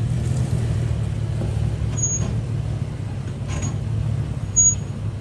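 Toyota FJ Cruiser's V6 engine running at a low, steady crawl as the truck climbs a rutted off-road trail. A few short high squeaks come over the drone, the loudest a little before the end.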